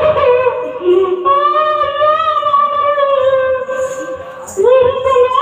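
A high-pitched voice wailing in long, sung-out held notes: a theatrical lament. There are two long notes, and a third rises in near the end.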